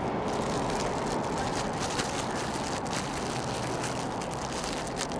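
Steady outdoor background noise with faint scattered crackles and clicks.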